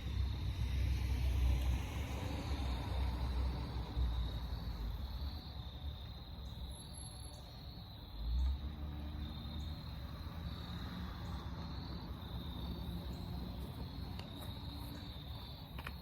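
Insects chirring steadily in a high, unbroken drone, over a low rumble that swells in the first few seconds and again briefly past the midpoint.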